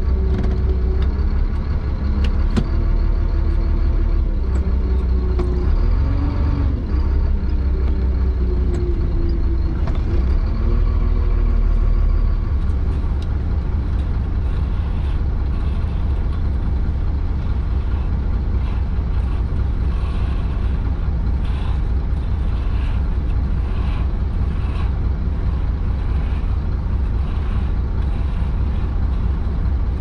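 Diesel engine of a Chenglong concrete mixer truck heard from inside the cab, a deep steady rumble. Its pitch rises and falls as the truck manoeuvres during the first dozen seconds, then it runs steadily at a constant speed.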